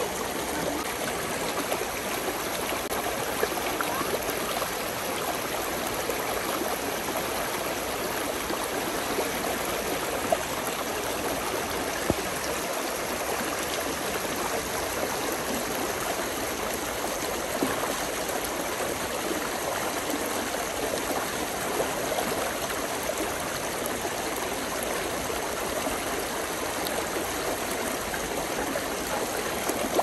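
Brook babbling steadily: a continuous rush and gurgle of running water, with a few brief splashes standing out here and there.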